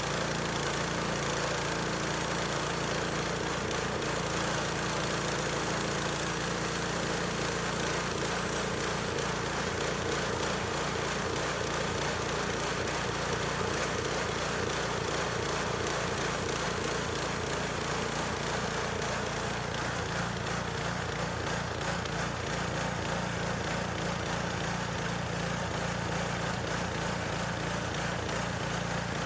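Small gasoline engine of a sawmill running steadily.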